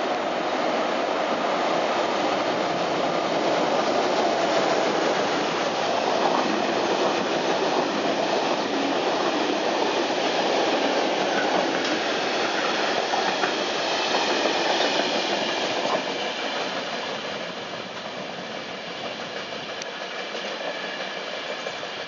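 SBB freight train of loaded ballast wagons passing close by, its wheels running steadily over the rails. The sound drops to a lower level about two-thirds of the way through as the train moves away.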